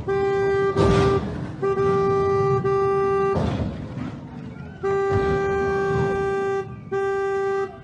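Single-note car horn held down in four long blasts, the longest about two seconds. Two loud noisy thumps come about a second in and about halfway through.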